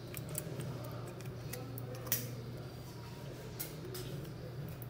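Scattered light clicks and ticks from handling small tools and parts at a repair bench, one sharper click about two seconds in, over a steady low hum.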